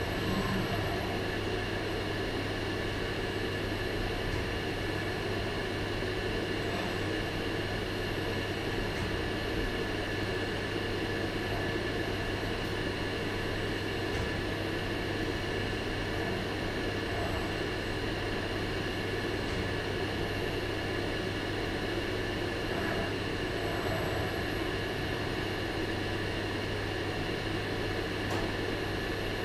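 Steady machine hum in a robotic welding cell: an even low drone with faint steady high tones above it, no welding arc.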